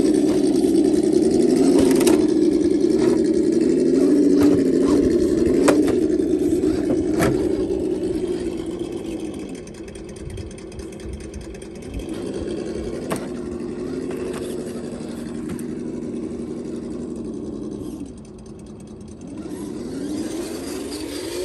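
Sense Innovations ESS Dual Plus engine-sound simulator playing simulated engine noise through the speaker of a Redcat Gen8 V2 RC crawler, its pitch rising and falling with the throttle and easing off twice. Several sharp clicks and knocks come through in the first half and once more later as the truck crawls over pavers.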